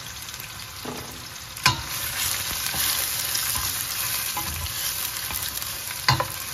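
Raw onion frying and sizzling in hot oil with whole spices in a pan while being stirred. A sharp knock comes about a second and a half in, after which the sizzle grows louder, and a couple more knocks come near the end.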